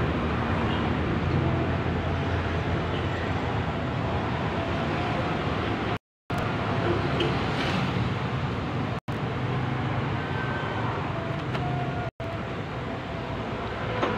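Steady background rumble of road traffic, with no distinct events; the sound cuts out for a moment about six seconds in and twice more later.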